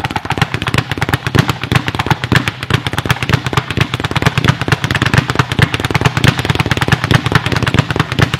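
A speed bag being punched in a fast, continuous rhythm, banging against the wooden rebound platform many times a second.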